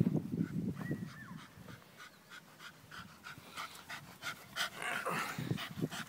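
Dog panting quickly with a rubber ball held in its open mouth, short breathy strokes about four a second, stronger in the second half. A low rumble sounds in the first second.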